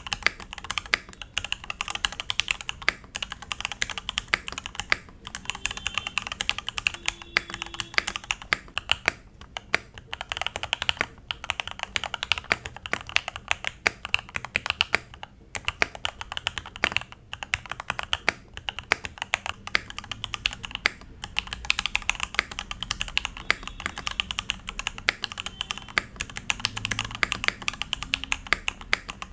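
Typing on a modded Thunderobot K98 mechanical keyboard with lubed switches: fast, continuous keystrokes with a few brief pauses.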